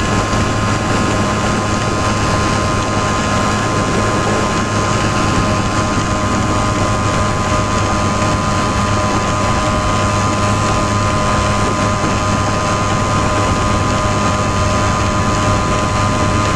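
Simson S51's 50 cc single-cylinder two-stroke engine running at steady revs, its pitch holding constant throughout.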